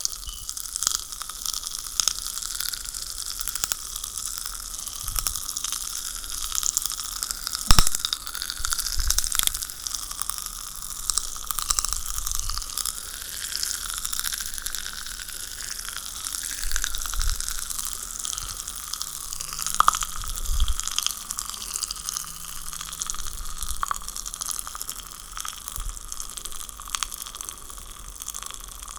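Popping candy crackling and fizzing: a dense, continuous stream of tiny high-pitched pops and snaps, with one louder pop about eight seconds in.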